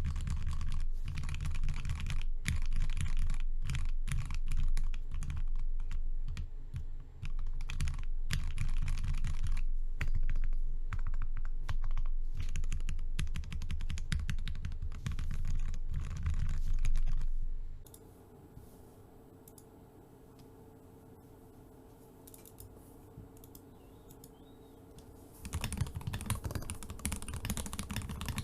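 Lubed Gateron Yellow switches on a Tofu60 mechanical keyboard with a brass plate, typed on in a fast, continuous stream of deep keystrokes. About two thirds of the way through, the typing stops for several seconds, leaving only a faint steady hum, then resumes near the end.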